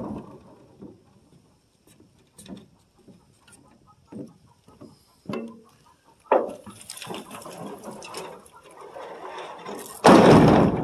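Old corrugated metal roofing sheets clattering and scraping under foot and hand, with scattered knocks at first. About six seconds in there is a sharp clank, followed by a long metallic scrape as a sheet is shifted across the stack, and a loud rattle of metal near the end.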